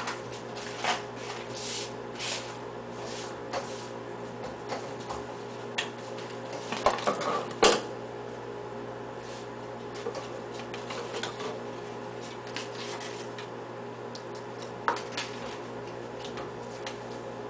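Lumps of cooked rice dropping onto the bottom of a clear plastic tub: scattered light ticks at irregular intervals, with a quick run of several about seven seconds in, over a steady low hum.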